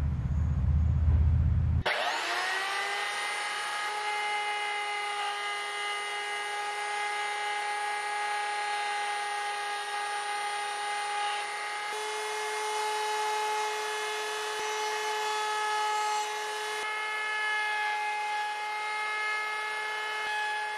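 Table-mounted router spinning up about two seconds in, after a low rumble, then running at a steady high whine as a flush-trim bit pattern-routes small spruce rib pieces.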